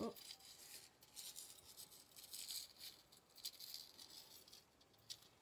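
Faint, irregular rattling and rustling of a metal necklace chain being handled, with a few light clicks.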